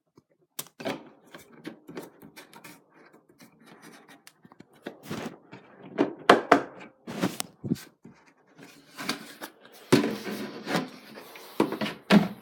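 Irregular clicks, knocks and scrapes of things being handled at the washing machine, with louder knocks about six and ten seconds in.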